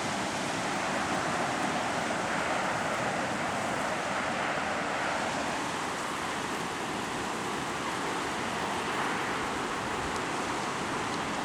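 Steady rushing roar of Mae Surin Waterfall's falling water, an even noise that holds unchanged throughout.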